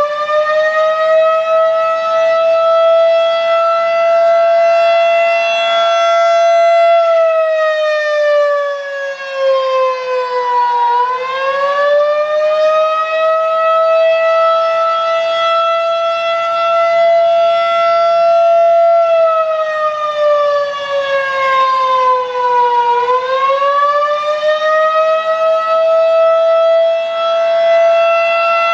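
Federal Signal 2001-DC single-tone outdoor warning siren sounding a slow wail. Its loud tone holds high for several seconds, then twice glides down and back up, roughly every twelve seconds.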